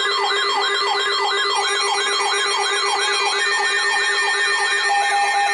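Electronic siren-style alert tone: a fast rising sweep repeated about three and a half times a second over steady high tones. A steady lower tone joins near the end.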